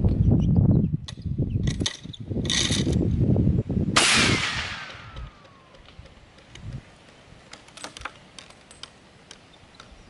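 Rumble with a few metallic clicks and rattles, then about four seconds in a single sharp 7.62 NATO rifle shot strikes a hardened Master Lock M930 padlock. A ricochet whine follows, falling in pitch as it fades.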